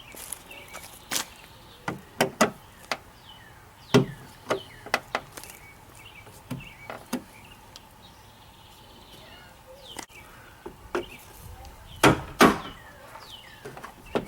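Irregular sharp clicks and knocks of metal hardware inside a truck door as the rear door latch, its rivets drilled out, is worked loose. The loudest pair of knocks comes near the end.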